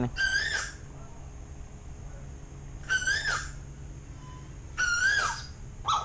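An Asian koel calls three times, each call about half a second long, rising briefly and then falling in pitch.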